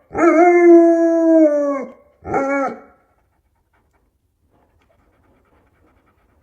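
Dog howling: one long, steady howl, then a short one just after.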